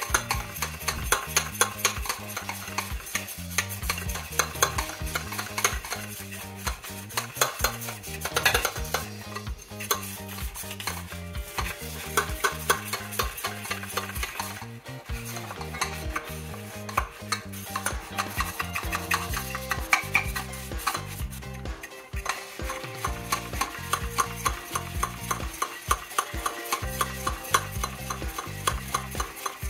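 Stiff bottle brush scrubbing the inside of a stainless steel mug, quick repeated scratchy strokes against the metal wall and bottom, working tea stains off.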